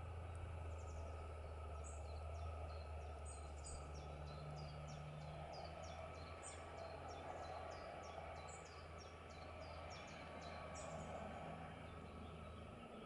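Small birds chirping rapidly and repeatedly over a faint, steady low hum of background noise.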